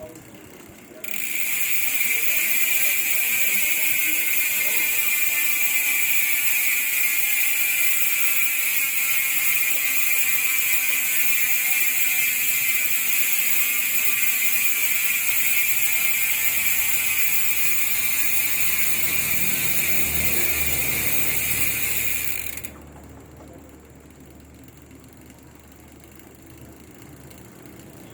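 Weapon Savage bicycle hub freewheeling: its 6-pawl ratchet with 114 engagement points gives a loud, fast, high-pitched buzz of clicks. The buzz starts about a second in, slows gradually as the wheel coasts down, and cuts off suddenly after about twenty seconds.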